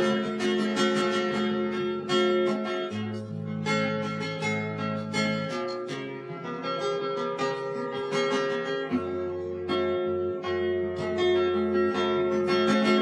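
Background music played on plucked acoustic guitar: picked notes and chords over a changing bass line.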